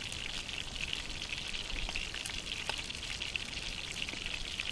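Fish frying in a pan over an open fire: a steady sizzle thick with fine crackling spatters.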